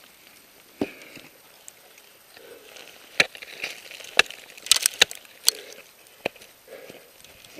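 Ice axe picks striking into waterfall ice: a series of sharp, irregularly spaced hits, with a quick cluster of several near the middle.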